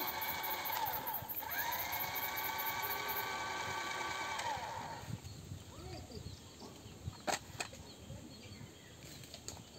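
A small electric toy motor whining steadily, its pitch dipping and rising once, then cutting out about halfway through; a few sharp clicks follow.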